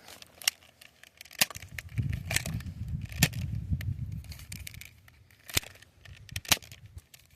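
Nerf blasters firing foam darts: sharp clicks about once a second, with low wind rumble on the microphone.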